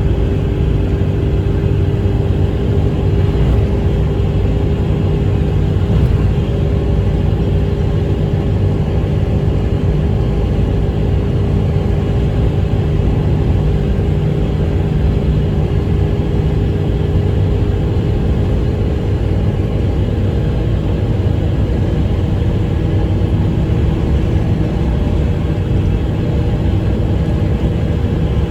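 Daihatsu Mira Gino at high speed with a steady, low droning "goo" noise, an abnormal noise the owner links to the car being in a low gear. A steady hum rides over the rumble and fades about two-thirds of the way through.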